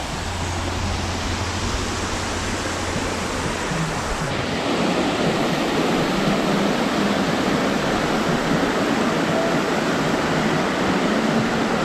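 Waterfall rushing, a dense steady roar of falling water, with a low hum that stops about four seconds in.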